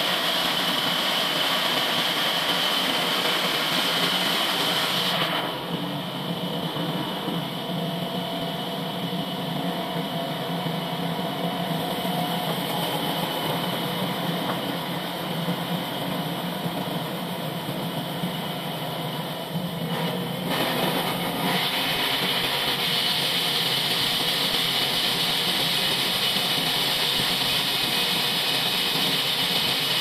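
Horizontal band sawmill running, its blade cutting through a large log with a steady machine noise and a high, hissing cutting sound. The high hiss drops away about five seconds in and comes back after about twenty seconds.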